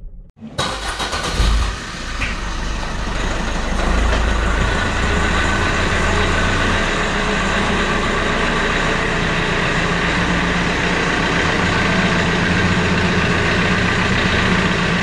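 Car on the move: steady engine and road noise that builds over the first few seconds, with a few knocks near the start, then holds even.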